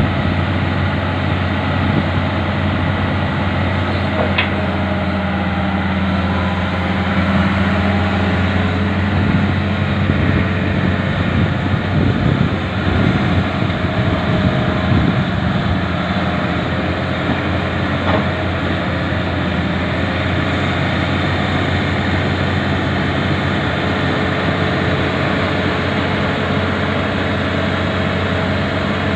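Hitachi crawler excavator's diesel engine running steadily under hydraulic load as the machine works to free itself from deep mud, rougher and more uneven for a few seconds in the middle.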